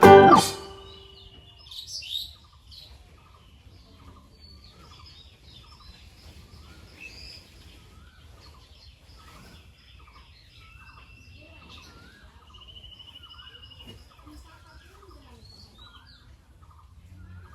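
Small birds chirping and calling, several voices together: short repeated chirps, higher thin calls, and a brief fast trill near the end. A burst of background music cuts off right at the start.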